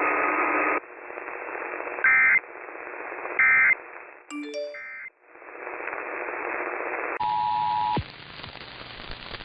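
NOAA Weather Radio static hiss carrying three short, screechy SAME data bursts about a second and a half apart: the end-of-message code that closes a weather-radio alert. After a cut, a steady two-tone beep like the EAS attention signal sounds for under a second and stops abruptly.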